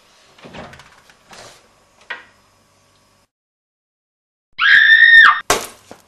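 A fridge door is opened with faint rustling and a small click. About four and a half seconds in comes a short, loud, high-pitched shriek, then a sharp splat as a raw egg smashes on a tiled floor.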